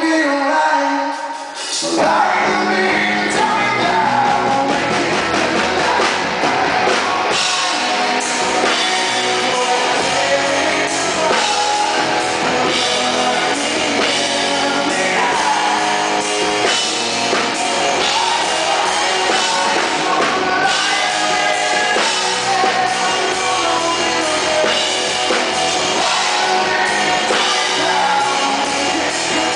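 Live rock band: a male lead singer with electric guitar and drum kit. A quieter sung line dips briefly and the full band comes in about two seconds in, then plays on with steady singing.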